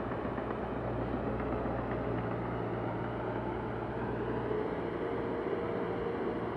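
Heavy diesel earthmoving machinery running steadily, a continuous engine hum whose note shifts about four seconds in.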